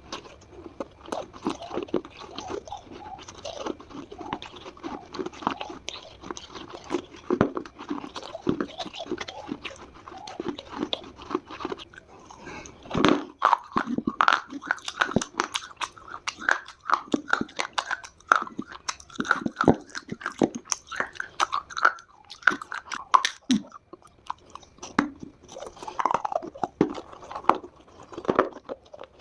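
Close-up biting and crunching of dry Multani mitti (Fuller's earth clay), with chewing: a continuous run of sharp, crisp cracks that grows louder and denser about halfway through.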